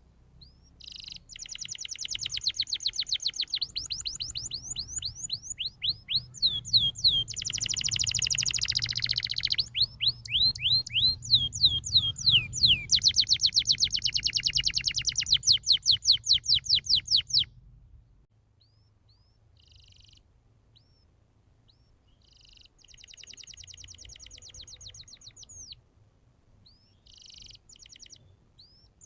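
Domestic canary singing fast rolling trills of rapidly repeated chirping notes. The song runs loud and unbroken for about the first 17 seconds, then continues more softly in short phrases with pauses between them.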